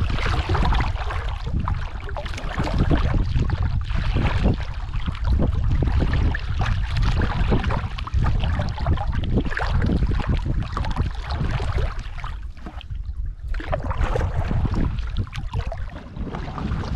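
Strong wind buffeting the microphone in a heavy, steady rumble, with irregular splashing and slapping of choppy water around an Ally canoe being paddled into the wind.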